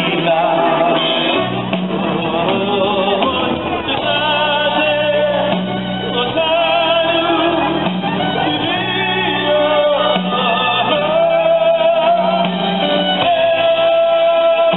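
Live band music: a male singer sings with a wavering voice over keyboard and band accompaniment, holding a long note near the end.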